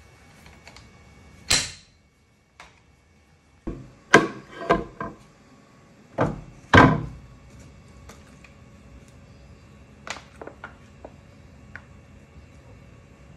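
Letterpress ink rollers being handled, lifted off the press and laid in a wooden crate. They give a string of hard knocks and clunks, the loudest about four and seven seconds in, then a few light clicks near the end.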